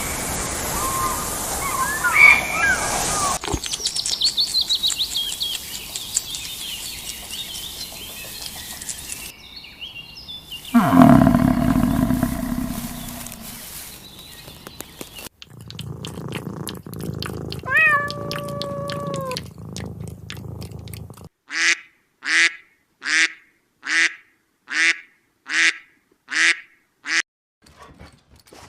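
A run of different animal calls, one clip after another: a loud low-pitched call about a third of the way in, and near the end a series of eight short, evenly spaced calls.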